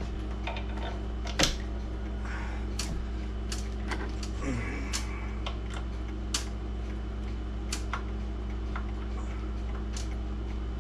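Scattered sharp clicks and light taps from handling clock case parts by hand, over a steady low room hum.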